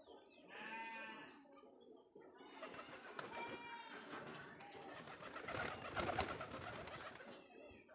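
Domestic pigeons: a short call about a second in, then wing flapping that is loudest about six seconds in, as a pigeon flies down from its perch.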